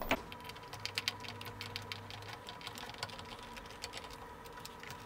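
Small Phillips screwdriver backing screws out of a Dyson V8 vacuum's plastic housing: a run of light, irregular clicks and ticks.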